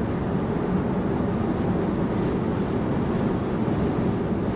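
Steady road and tyre noise inside the cabin of a Tesla Model Y Performance, an electric SUV, cruising on the freeway: an even low rumble.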